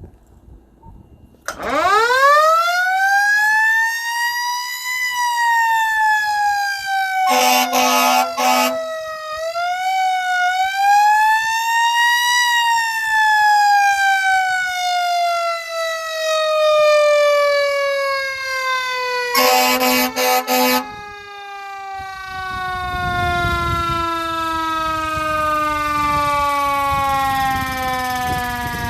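Motor-driven mechanical siren, its rotor chopping air against the stator, winding up into a rising wail, dipping, rising again, then running down in a long, slowly falling wail. The siren has an unstable motor shaft. Two bursts of a steady buzzing tone, each about a second and a half long, cut in about 7 seconds and about 19 seconds in.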